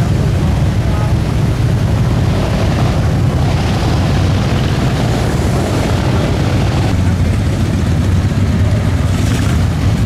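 Motorcycle engines running, a steady low rumble with no pauses, with voices faintly in the background.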